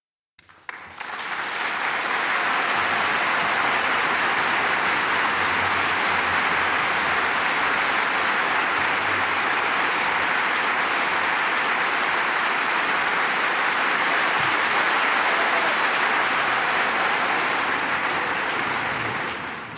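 A large crowd applauding: a few scattered claps grow within the first second into dense, steady clapping that fades away near the end.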